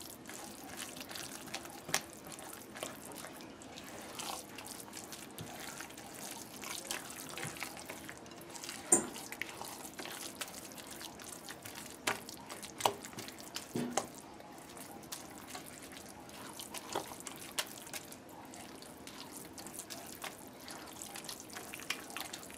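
Spatula stirring a moist mix of grated cassava and coconut in a glass bowl: steady, faint, wet stirring and scraping, with scattered sharper clicks.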